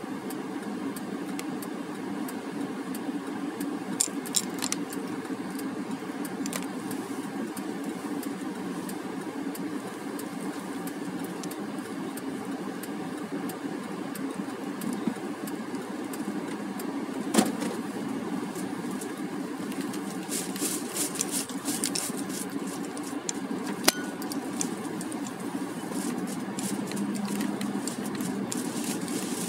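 Car driving slowly, heard from inside the cabin: a steady engine and road hum, with scattered rattles and clicks from loose items in the car, busiest about two-thirds of the way through.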